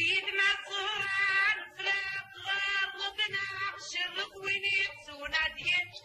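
A woman singing a traditional Kabyle song in a high voice, in short phrases with brief breaks between them.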